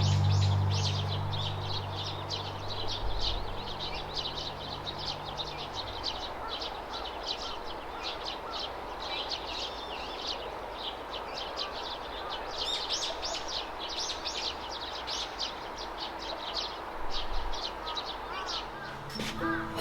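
Birds chirping in quick, dense runs of short high notes, thinning out in the middle and picking up again, over steady outdoor ambience. A low held tone fades out in the first few seconds.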